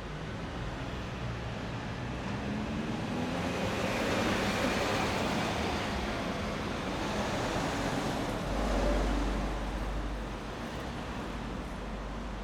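City street traffic: a motor vehicle passes close by, its engine and tyre noise swelling from about three seconds in and easing off near the end. A deep low rumble comes in past the halfway mark.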